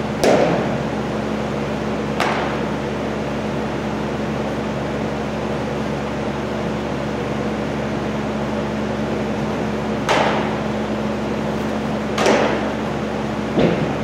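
Baseball pitches smacking into a catcher's leather mitt: several sharp pops, the loudest just after the start and another about twelve seconds in, with lighter catches between. A steady ventilation hum runs underneath.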